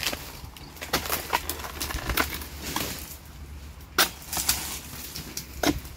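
Oil palm harvesting chisel (dodos) on a long pole chopping into the base of palm fronds and a fruit bunch stalk: a series of uneven, sharp cutting strikes with rustling of the fronds, the loudest strike about four seconds in.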